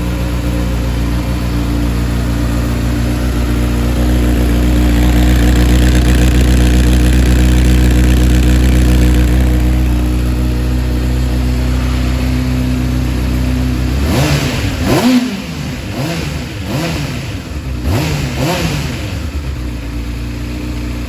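Honda CBR600F motorcycle's inline-four engine running steadily at idle through its exhaust. About two-thirds of the way in, the throttle is blipped four or five times, each rev rising and falling back to idle.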